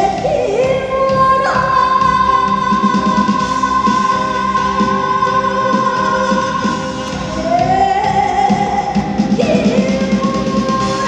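Live trot music: long held vocal notes, some sliding up into pitch, over a band accompaniment with a steady beat.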